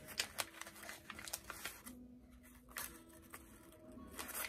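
Cardboard-and-plastic toy accessory packaging being handled: scattered light rustles and clicks, busier at first and again near the end, with a quieter stretch in the middle.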